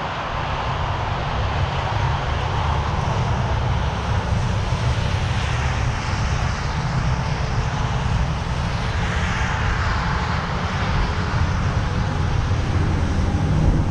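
Steady low rumble of wind on the microphone mixed with passing highway traffic, one vehicle swelling louder about nine seconds in.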